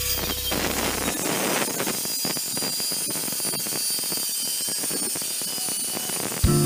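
Angle grinder's cutting disc biting into the steel shell of a hermetic compressor: a steady hissing grind with a thin high whine.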